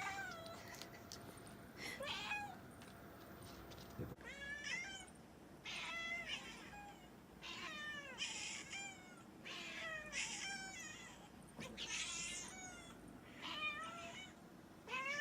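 Pet cat meowing over and over: a string of short calls, most sliding down in pitch, about one a second.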